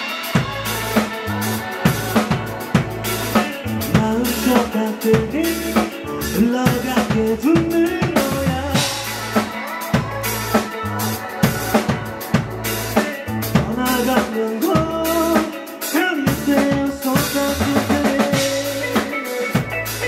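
Live band playing a song: drum kit with kick, snare and rimshots, electric bass and electric guitars, amplified through the venue's PA.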